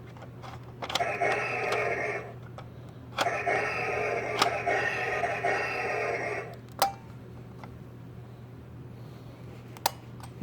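Vintage Star Wars AT-AT toy's battery-powered electronic sound effect: two buzzing bursts, one about a second long and then one about three seconds long, each starting with a click. A few more sharp clicks follow over a steady low hum.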